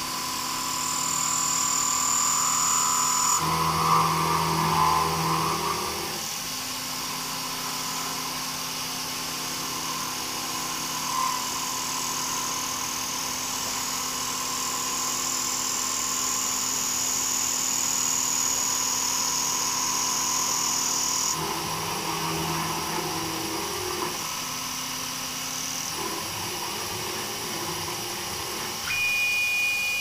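CNC milling machine spindle running while a half-inch slot drill cuts, interpolating a hole out to tapping size in a cast aluminium part under mist coolant. The steady machine whine carries a high whistle for much of the time and shifts in pitch several times as the cut changes.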